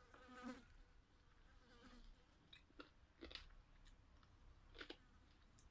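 Faint mouth sounds of a person eating steamed chicken with her fingers: chewing, with a few soft lip smacks and clicks about three seconds in and again near five seconds.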